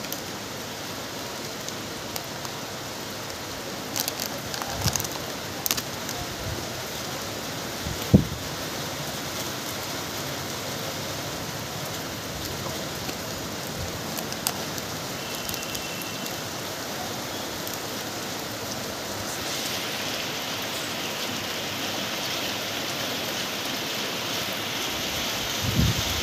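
Steady rain falling on roofs and ground, an even hiss with scattered sharp drips and taps. A single sharper knock about eight seconds in is the loudest sound. The rain grows a little louder and hissier in the second half.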